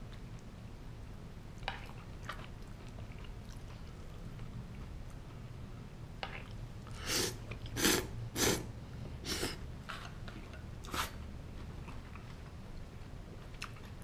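A person slurping ramen noodles from a bowl, about five loud slurps in quick succession around the middle, with chewing between them.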